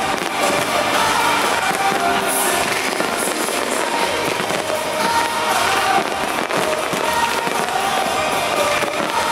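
Aerial fireworks popping and crackling continuously over music with a melody, with a brighter burst of crackle about two seconds in.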